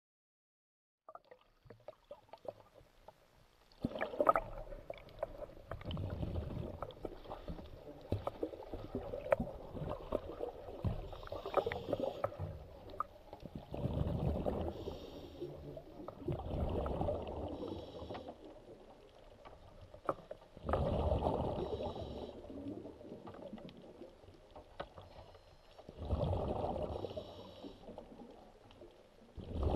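Water surging and sloshing heard through an underwater camera around a submerged wave energy device, muffled and swelling every three to five seconds with each passing wave, with scattered clicks and knocks. It starts faintly about a second in and grows louder about four seconds in.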